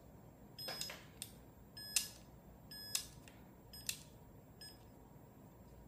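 FPV video goggles giving short electronic beeps, about one a second, each with a faint click.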